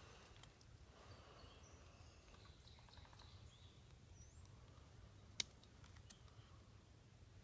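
Near silence in woodland: faint distant bird chirps and a low outdoor rumble, with one sharp click about five seconds in.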